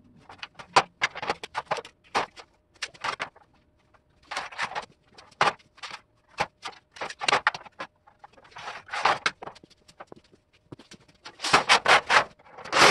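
Irregular clicks, taps and scrapes of a long level and a pencil on a thin metal sheet lying on a steel workbench, with a louder stretch of the sheet metal rattling as it is moved near the end.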